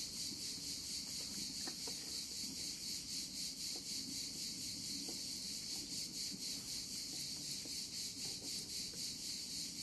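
Wood fire in a vortex stove with its door open, giving faint scattered crackles. Over it runs a steady high chirping that pulses evenly about twice a second.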